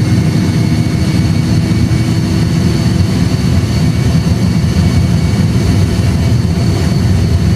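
Airbus A320 jet engines at take-off thrust during the take-off roll, as reproduced by a training simulator: a steady, loud low rumble of engines and runway, with a faint steady high whine over it.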